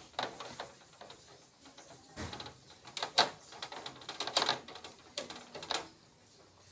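Irregular clusters of clicking and clattering, as of hand tools and metal parts being handled, with the loudest bursts about three and four and a half seconds in.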